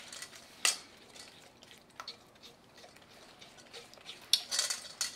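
A spatula stirring beaten eggs with sugar and cornstarch in a stainless steel bowl: wet stirring with scrapes and taps against the metal. A sharp clink comes a little under a second in, and the scraping gets busier and louder near the end.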